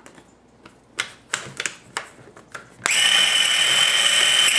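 Mini electric food processor: a few plastic clicks as the lid and bowl are handled. Then, about three seconds in, the motor starts suddenly with a loud, steady, high whine, a howling sound, as it minces pieces of chilled chicken breast.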